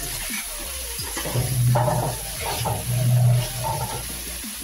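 A metal spatula scrapes and turns cauliflower florets around a kadai as they shallow-fry in a little oil. It moves in repeated stirring strokes, the two loudest about a second and a half apart, each with a low droning scrape of metal on the pan.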